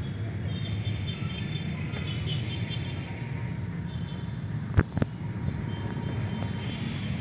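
Wind rumbling over a handheld phone's microphone during a bicycle ride. Two sharp knocks close together come about five seconds in, from the phone being handled.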